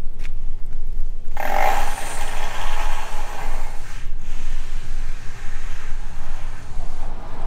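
Wind rumbling on the microphone of a moving bicycle's camera. About a second and a half in, a loud rushing hiss starts suddenly and fades over the next few seconds.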